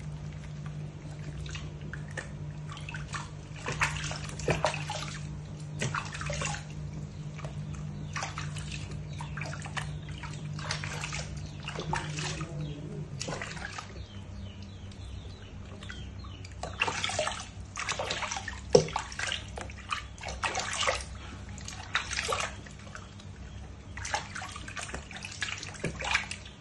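Water sloshing and splashing in a shallow plastic tub as hands scoop and rub water over two baby monkeys, in short irregular splashes.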